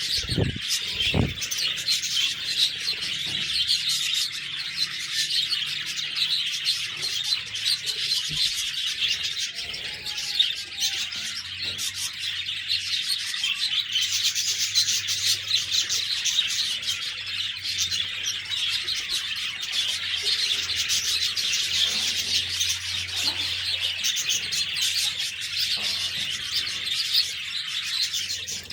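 Budgerigars (pet parakeets) chirping and warbling in a continuous, dense chatter of many overlapping high calls.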